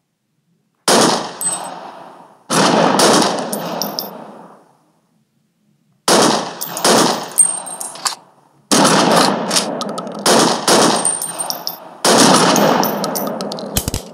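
Automatic-gunfire sound effects: about six bursts of rapid shots, each trailing off in an echoing tail, with high metallic pings among them.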